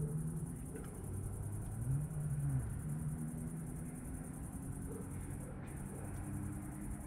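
A distant motor vehicle's engine running with a low hum that dips and rises in pitch a couple of seconds in, over a steady high hiss.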